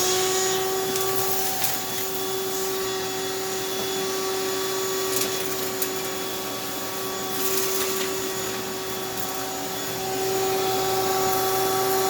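Vacuum cleaner running steadily and loudly, its motor giving a high, steady whine over a rushing hiss.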